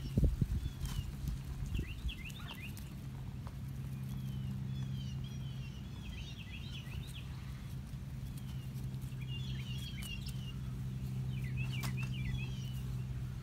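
A steady low hum runs throughout, with clusters of short, high bird chirps every couple of seconds. There is some low rumbling near the start.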